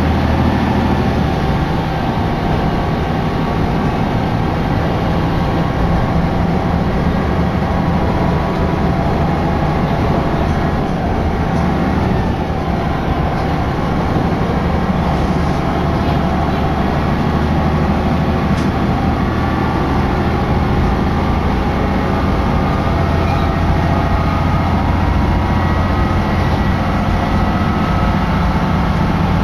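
A Hitachinaka Seaside Railway Minato Line diesel railcar running steadily, heard from inside: an even engine drone with the rumble of the wheels on the rails.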